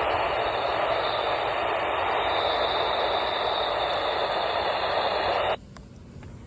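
Radio static hiss from a weather radio receiver, steady, then cutting off suddenly about five and a half seconds in.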